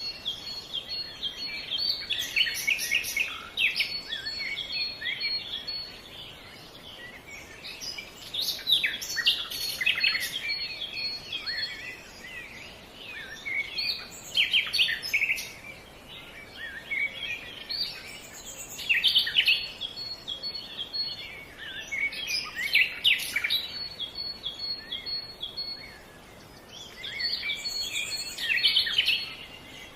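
Songbirds singing in woodland: bursts of quick high chirping phrases come roughly every five to six seconds over a faint steady background hiss.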